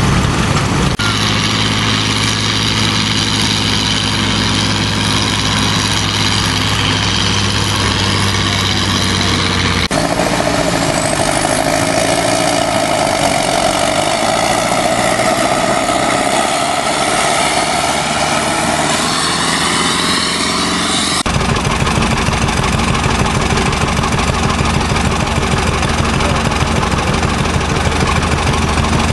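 Antique farm tractor engines working under load pulling a weight sled, heard in several cut-together stretches. A steady low engine note gives way about a third of the way in to a stretch with a strong high whine over the engine. Later comes a steadier engine idle.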